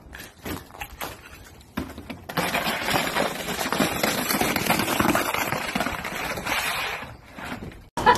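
Steady crackling and scraping on crusted, icy snow as a dog moves about, starting about two seconds in and stopping abruptly near the end.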